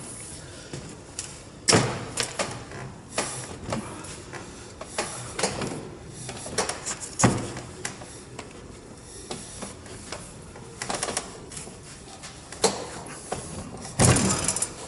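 Coiled white plastic water pipe being straightened by hand, pulled across the edge of a wooden board. Irregular knocks, rubs and scrapes, with a longer scraping rub near the end.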